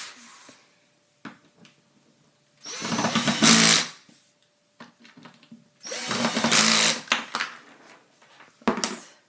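Power drill driving small screws into IKEA furniture in two short runs of just over a second each, with a few light clicks between and a sharp knock near the end.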